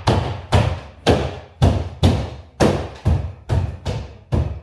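Repeated hard bangs, about two a second, from a recessed can light housing being struck and knocked up into a ceiling cut-out that is too small for it.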